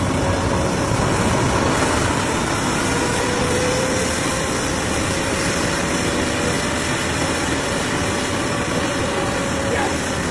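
Homemade jet engine running on a test stand during its first hot-fire test: a steady, loud rush with a faint whine that holds at about one pitch and wavers slightly.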